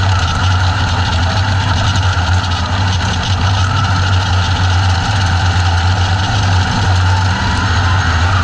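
Open-wheel dirt-track race car's engine, heard from the in-car camera, running at a steady, unchanging engine speed while the car rolls in the pack on a pace lap.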